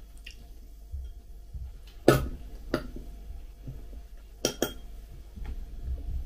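Metal cutlery clinking against a china plate and a small bowl while eating: four sharp clinks, two about two seconds in and a quick pair about four and a half seconds in.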